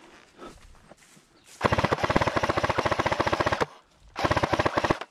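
Airsoft electric rifle firing on full auto: one burst of about two seconds, then a shorter burst of under a second.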